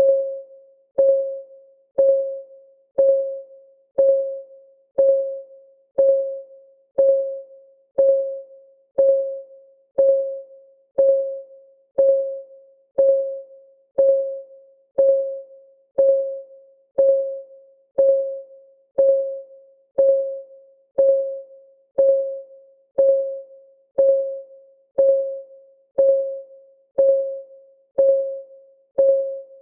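Countdown timer's clock-ticking sound effect, one tick a second, steady and even. Each tick is a sharp, pitched click that rings briefly.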